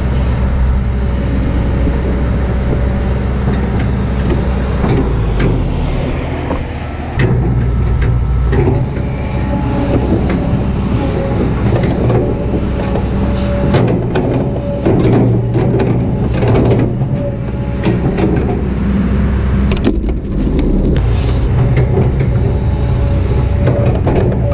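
Kobelco SK200-8 excavator's diesel engine running steadily under hydraulic load, its note dipping about six seconds in and picking up again, with scattered knocks and clanks through the second half.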